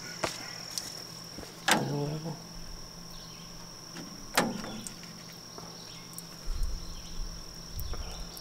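A spirit level knocking twice on a squared pine log on a bandsaw mill, each a sharp knock with a short ring, with smaller ticks of handling between and a low rumble near the end. A steady high insect trill runs behind.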